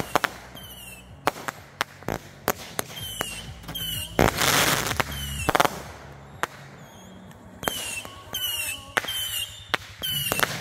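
Consumer fireworks firing: many sharp pops and crackles, with one loud burst about four seconds in. Short high chirps repeat through it.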